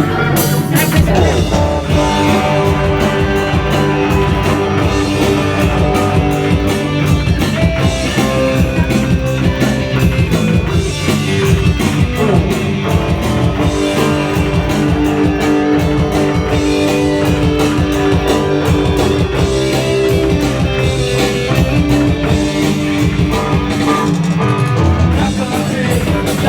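Live rock band playing loudly, with electric guitar over a steady drum-kit beat.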